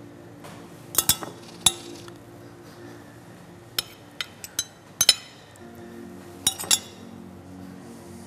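Metal spoons clinking against each other and against a ceramic baking dish as filling is scooped and knocked off, about a dozen sharp, ringing clinks in small clusters. Soft background music plays underneath.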